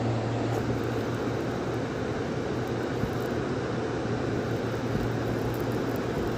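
Steady rumbling background noise with a constant low hum running under it.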